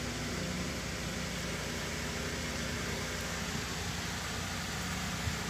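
Steady room background: an even hiss with a low mechanical hum under it.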